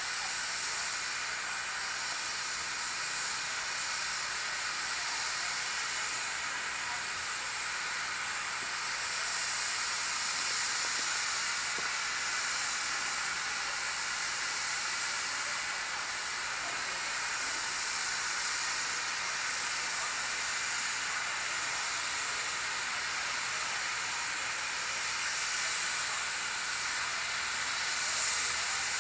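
Narrow-gauge steam locomotive standing still, steam hissing steadily from a vent low on its side.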